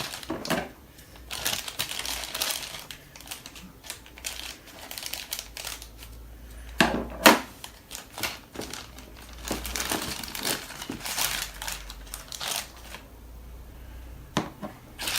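Blind-box toy packaging being opened and handled: cardboard and plastic wrapping crinkling and rustling in irregular bursts, with sharp clicks and taps, the loudest a pair of knocks about seven seconds in.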